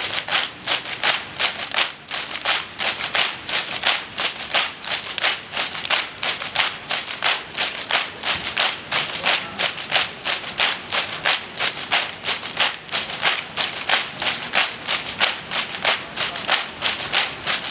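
A large cheering section of students clapping in unison in a steady, even rhythm, close to three claps a second.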